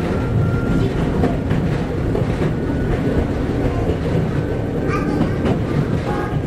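Chichibu Railway 7500 series electric train running, heard from the cab: a steady rumble with the wheels clicking over rail joints and points, and a brief high-pitched squeak about five seconds in.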